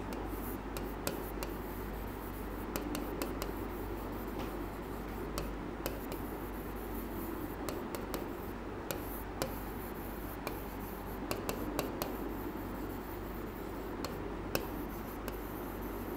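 Stylus writing on the glass of an interactive whiteboard: irregular small taps and light scrapes as letters are written, over a steady low hum.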